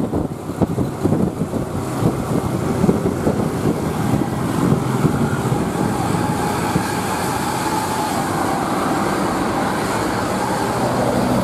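Road traffic with a heavy vehicle's engine running close by, uneven and pulsing at first and steadier later.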